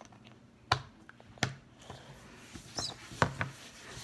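Slime being handled and worked in the hands and its plastic container: sharp clicking pops, three standing out above softer squishing and rustling.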